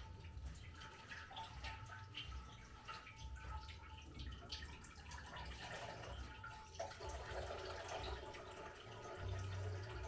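Water dripping and splashing as leafy greens are washed and drained by hand.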